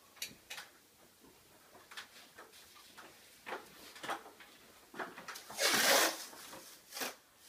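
Scattered light knocks and handling noises, then, about six seconds in, a loud brief rustle of plastic drop sheeting being brushed through.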